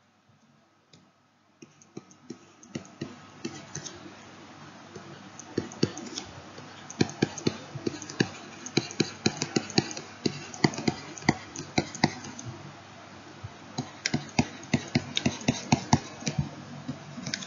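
Rapid, irregular clicking and tapping of keys or buttons, starting about two seconds in, thick with clicks for most of the rest, with a short lull about three-quarters of the way through.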